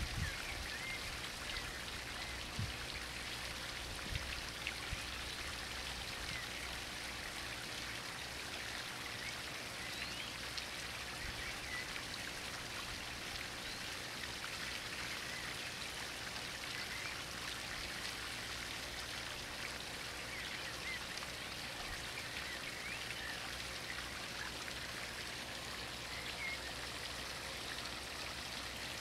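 Water of a two-tier sandstone fountain falling from its upper and lower bowls and splashing into the pool below: a steady patter and splash.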